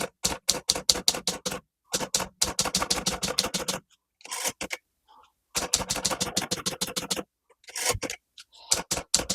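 Klein Continental portable typewriter being typed on: runs of quick type-bar strikes, several a second, broken by short pauses between words.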